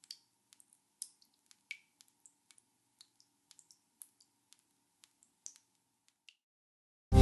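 Water drips falling irregularly, each a short, sharp plink, some with a brief bright ringing tone; the drips grow sparse and stop about six seconds in. Music cuts in loudly at the very end.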